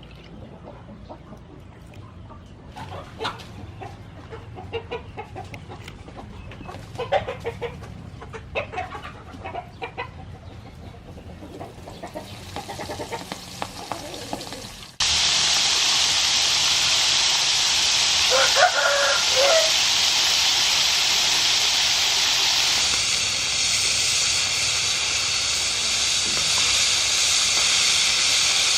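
Chickens clucking, then about halfway through a loud, steady sizzling hiss starts abruptly: food frying in hot soybean oil in the pan, with one more cluck heard over it.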